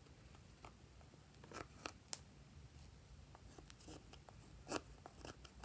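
Faint scraping and clicking of a small plastic spatula digging eyeshadow out of a makeup palette's pans, with a few sharper clicks around two seconds in and again near five seconds.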